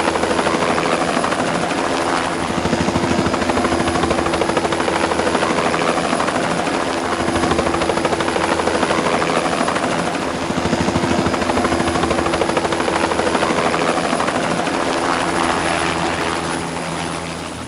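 Helicopter running in flight: a loud, steady drone with the fast chop of the rotor blades and a steady high whine. It fades out at the end.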